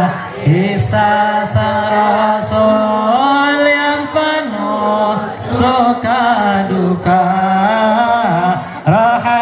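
Shalawat, Arabic devotional singing in praise of the Prophet: a voice holds long, ornamented notes that slide between pitches, with a few sharp beats.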